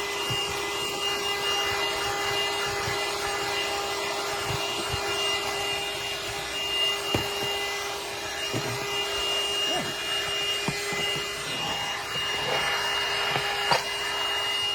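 CHERYLON handheld cordless car vacuum cleaner running steadily with a high whine, its nozzle attachment scraping and knocking against the car's carpet every second or so.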